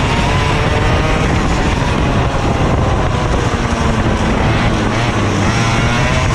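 Racing kart engine running hard, heard from the driver's seat under a steady rush of wind and road noise. The engine note slides up and down a little as the kart goes through the corners.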